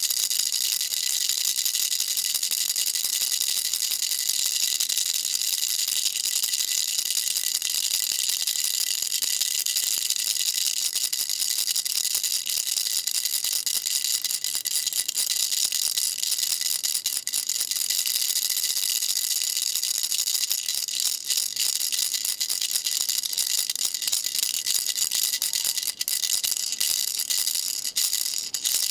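Baby rattle shaken without pause, a dense, steady, high-pitched rattle of small pellets with faint ringing tones over it; the shaking breaks up briefly a few times near the end.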